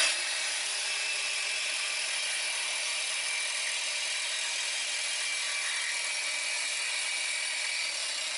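Electric jigsaw with a metal-cutting blade running at full speed and sawing steadily through 3-inch square steel tube, tapering off near the end.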